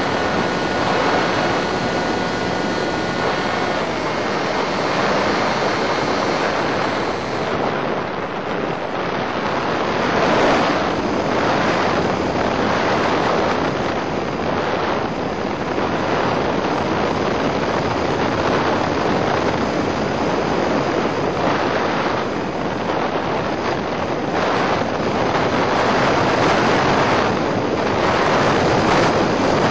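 Steady, loud rushing noise on the onboard audio of an Easystar FPV foam plane in flight. A faint whine from its electric motor runs under it for the first few seconds, then stops as the motor is cut to glide.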